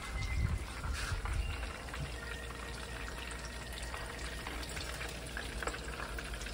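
Beer-battered cod frying in a shallow pan of hot oil: a steady sizzle with small scattered crackles. A few low bumps come in the first second or two.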